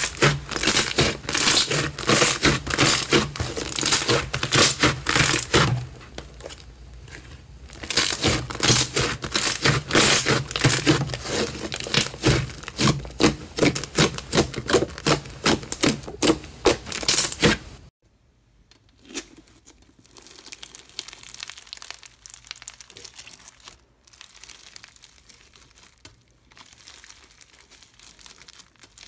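Hands squeezing and kneading a large lump of pink fluffy slime, giving a loud, dense, rapid crackling and crinkling with a short lull about six seconds in. About eighteen seconds in it cuts to a much quieter, sparser crackle of blue bead-filled crunchy slime being squeezed between the fingers.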